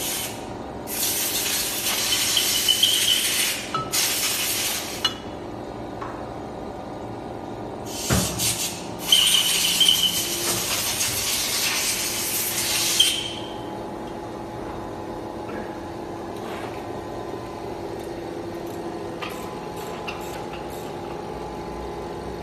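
Compressed air hissing in several bursts of a few seconds each, stopping a little past halfway, over the steady hum of an abrasive flow machining machine.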